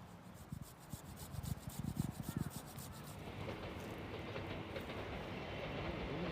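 A few irregular knocks and rubbing noises, then a train on the nearby line approaching, its rumble growing steadily louder over the last few seconds.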